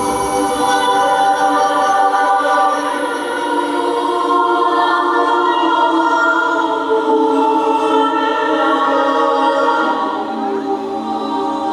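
Music with choir-like voices holding long, slowly changing chords.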